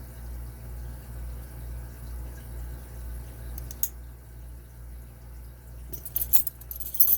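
Small metallic clicks from lock-picking tools working in a brass Lane security padlock: one click about four seconds in, then a quick cluster of clicks near the end, over a steady low hum.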